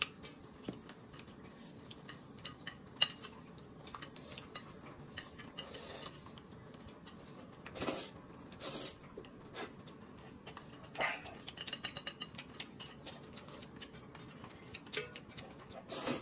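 Eating sounds at a table: scattered light clinks of a small spoon in a glass cup and of chopsticks against a plate, with a couple of short slurps of noodles about eight seconds in.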